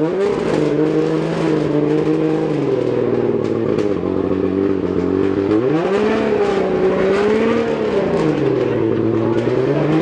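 Ford Fiesta rally car's engine revved hard while the car is stuck in a muddy ditch, its wheels spinning as it tries to pull itself out. The revs climb and hold for a couple of seconds, drop back, then climb and hold again about six seconds in before falling once more.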